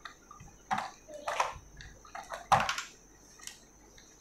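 Hard plastic parts of a take-apart toy truck being handled and knocked together, a few short clatters about a second apart.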